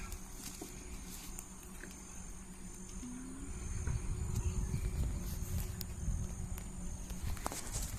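Insects chirping in a steady high-pitched drone, over a low rumble and a few faint clicks.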